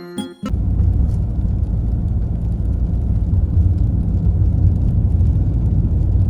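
Strong gusting wind buffeting the microphone: a loud, steady low rumble with no pitch, starting abruptly about half a second in as a piano tune cuts off.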